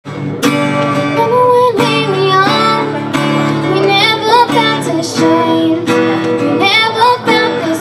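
A girl singing a melody while strumming chords on an acoustic guitar.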